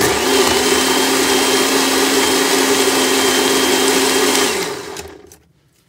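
Small electric blender running steadily, blending thick pancake batter, then switched off about four and a half seconds in, its motor winding down with a falling whine.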